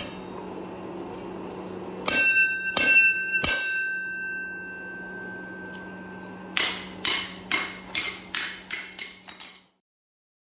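A heavy forged bone-chopping cleaver being tested on its steel edge: three sharp metal strikes with a clear ringing tone that lingers. Near the end come about ten clinks, each quicker and fainter than the last.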